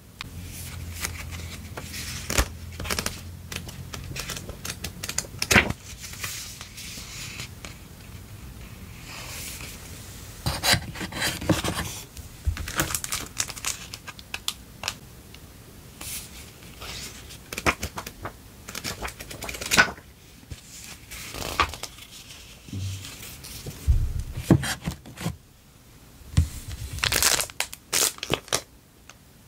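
Clear plastic packaging sleeves crinkling and rustling in irregular bursts as paper memo pads inside them are handled and sorted, with sharp crackles here and there.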